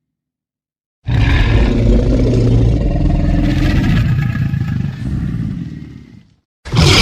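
Tyrannosaurus rex roar sound effect: one long, deep, rough roar that starts about a second in and fades away near the end. Another loud effect cuts in just before the end.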